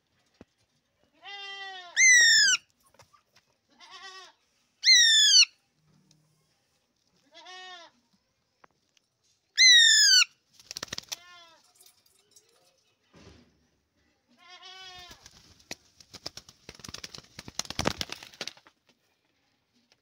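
Alexandrine parakeet giving three loud, high screeches a few seconds apart, with softer, lower bleats of a young goat in between. Near the end comes a few seconds of scratching and rustling.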